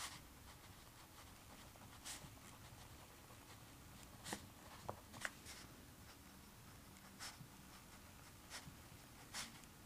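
Faint writing on paper: short, scratchy strokes of a writing tool at irregular intervals, a few clustered together about halfway through.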